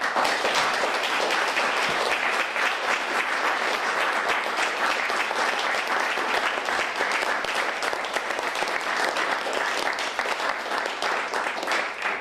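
Audience applauding, a steady wash of many hands clapping that starts suddenly.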